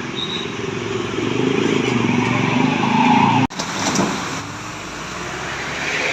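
A bus passing close by on the road, its engine hum and road noise growing louder over the first three seconds. The sound breaks off abruptly about halfway through, then road noise carries on at a lower level.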